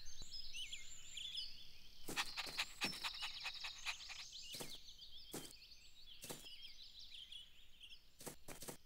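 Birdsong ambience of small birds chirping and tweeting, with light taps running through it: a quick run of them about two seconds in, then a few scattered ones.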